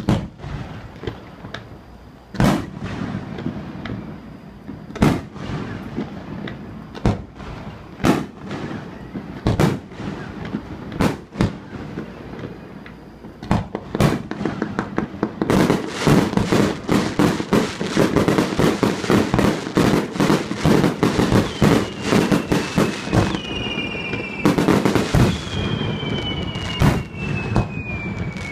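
Aerial fireworks display: shells going off in sharp bangs a second or two apart, then from about halfway through a dense run of rapid bangs and crackling. Long falling whistle-like tones come in near the end.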